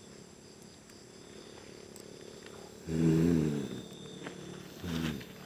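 A person's voice making a drawn-out wordless sound about three seconds in, then a shorter one near the end, with quiet stretches between.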